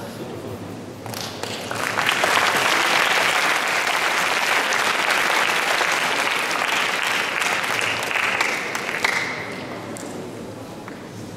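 Audience applause that builds about a second in, holds for several seconds, then dies away near the end.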